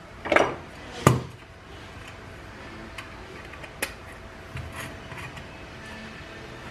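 Ceiling fan's canopy ring and mounting bracket being taken apart by hand: two sharp knocks in the first second or so, then a few lighter clicks of the parts being handled.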